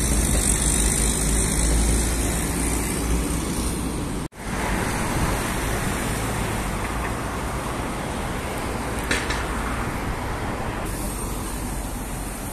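Steady city street traffic noise from passing cars and buses, cutting out for an instant about four seconds in.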